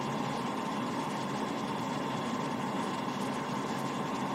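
Steady flight-deck noise of an airliner on approach: a constant hum of engines and airflow with a thin steady high tone over it.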